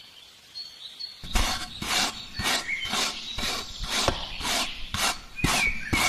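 Rhythmic rasping or scraping strokes, about two a second, starting about a second in after a quiet moment.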